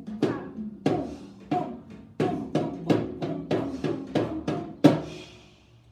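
A drum struck by hand in a varied rhythmic pattern, about fifteen strokes, with the last and loudest one near the end and then ringing out. Faint background music runs underneath.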